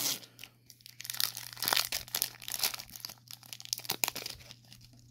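Silver foil wrapper of a Panini Select trading card pack being torn open and crinkled by hand: crackling rustles with a short lull soon after the start, dying away near the end.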